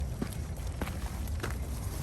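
Footsteps at a walking pace, about one every half second, over a steady low rumble of wind on the microphone.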